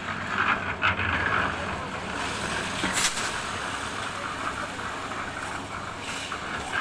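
An engine running steadily, with a sharp clank about three seconds in and voices in the background.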